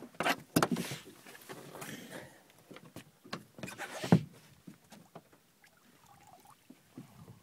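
Several sharp knocks and scuffling in the first second or two, another knock about four seconds in, then only faint rustling: bumping and handling on the boat as a sturgeon is landed.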